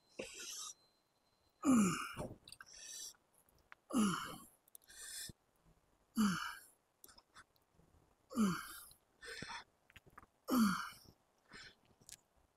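A man's heavy effort breathing through slow prone leg curls: a loud grunting exhale, falling in pitch, about every two seconds, five in all, each followed by a quicker breath in.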